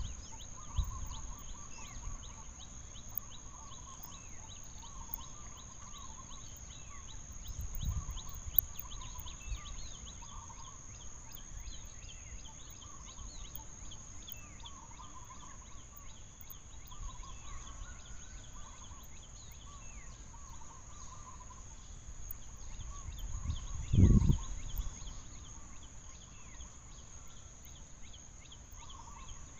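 Outdoor animal ambience: a steady high-pitched drone with many short, repeated chirping calls, and a couple of low thuds, the loudest about 24 s in.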